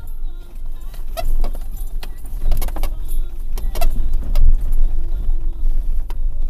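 Off-road vehicle driving over a rough, rocky snow-covered track, heard from inside the cabin: a steady low rumble with irregular sharp clicks and rattles as it jolts over the bumps.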